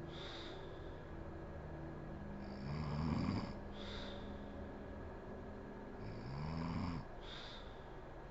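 A sleeping woman snoring: two snores about three seconds apart, each rising in pitch and followed by a short breath. The end of another breath falls just at the start.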